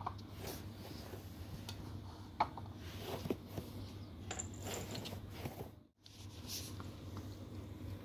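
A cat eating wet food from a plastic bowl: faint, scattered small clicks and taps of its mouth and teeth against the food and the bowl. The sound cuts out briefly about six seconds in.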